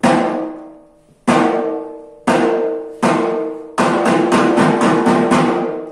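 A drum struck hard, each blow ringing on with a pitched tone that fades. Four strikes come about a second apart, then a quicker run of strikes follows.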